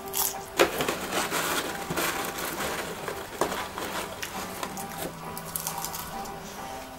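Crinkling and rustling of a popcorn bag as a hand rummages in it, mixed with popcorn being crunched and chewed; the crackle is loudest in the first couple of seconds.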